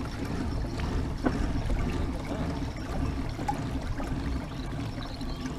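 Water trickling and lapping along a moving kayak's hull, over a steady low rumble.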